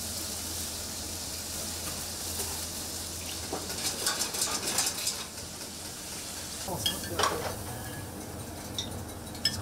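Steady sizzling of food cooking in stainless steel pots on a professional kitchen stove, with clinks and scrapes of metal pots and utensils. The clinks cluster about four to five seconds in, and a few more come near the end.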